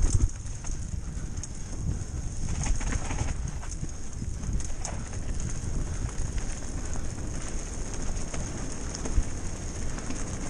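Wind buffeting the microphone and tyres rattling over a rough dirt trail at speed, with a steady high-pitched hiss.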